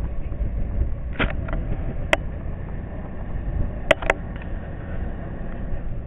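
Low steady rumble of a motorboat under way, with rushing water noise, broken by a few sharp knocks: one just over a second in, one about two seconds in, and two close together about four seconds in.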